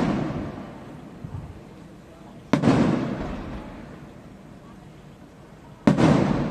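Fireworks aerial shells bursting with sharp booms, one about two and a half seconds in and another near the end. Each boom is followed by a rumbling echo that dies away over a second or more. The start holds the fading echo of a burst just before.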